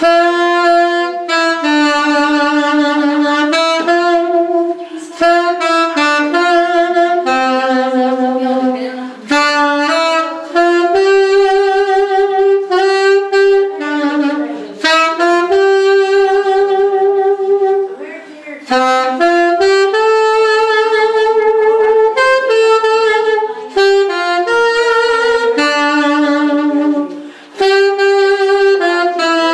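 Alto saxophone playing an unaccompanied melody of held notes, with short breath pauses between phrases.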